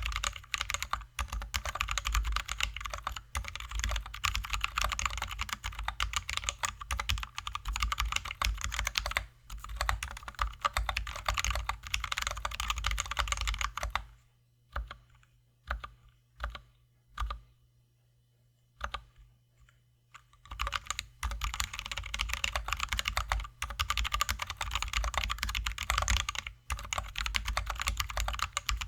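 Steady fast typing on a Drop ALT high-profile mechanical keyboard with lubed and filmed Zealios V2 67g tactile switches and XDA-profile keycaps. About halfway through the typing stops, leaving a few single keystrokes and a short quiet spell, then resumes.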